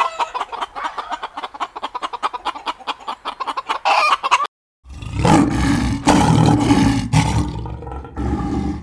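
Chickens clucking in a rapid stream of short calls. After a brief silence it cuts to a louder, rougher recording with a heavy low rumble.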